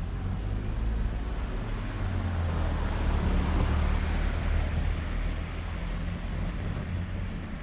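A small car driving past on the street alongside, engine hum and tyre noise swelling to a peak around the middle, then fading as it pulls away ahead.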